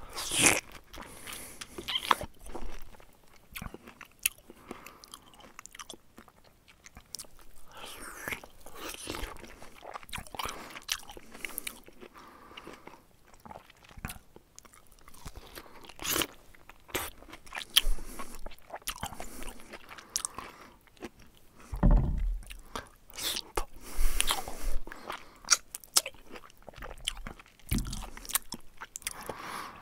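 Close-up eating sounds: a mouth biting, chewing and crunching food in an irregular run of wet, crunchy clicks, with a few louder, deeper thuds in the second half.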